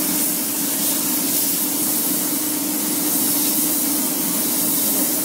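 Small gravity-feed automotive spray gun hissing steadily as compressed air atomises paint onto a car fender, over a steady low hum.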